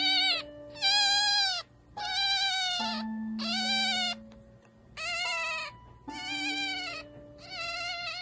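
Newborn fennec fox kit crying: a string of about seven high, arching squeals, each under a second long, coming roughly once a second, over background music with held plucked notes.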